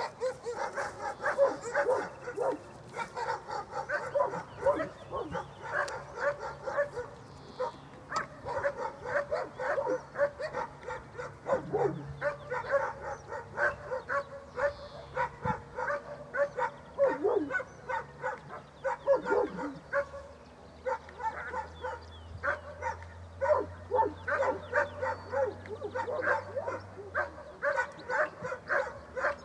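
A dog barking continuously in quick, even volleys, several barks a second.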